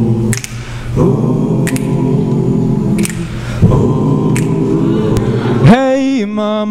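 Male a cappella group singing held chords, with a vocal-percussion snare hit about every second and a half. Near the end a solo voice comes in on a rising, wavering held note.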